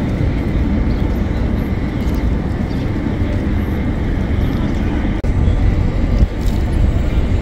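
Steady low rumble of outdoor city ambience, with a brief dropout about five seconds in.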